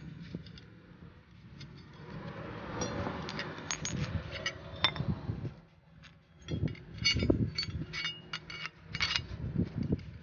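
Loose steel flange nuts, washers and a removed suspension arm being set down and moved about on concrete: a string of small metal clinks and taps, with a few dull knocks.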